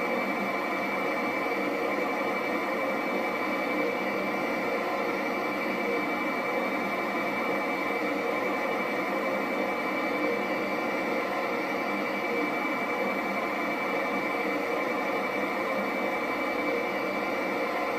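Jet engine running steadily, an even roar with a constant high whine.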